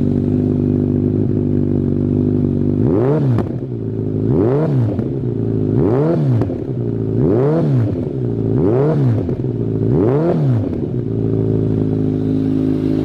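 Kawasaki ZRX1200 DAEG's inline-four engine running through a Maverick titanium full exhaust with carbon silencer: idling, then blipped six times about every second and a half, each rev rising and falling back, then idling again near the end. The revs pick up cleanly.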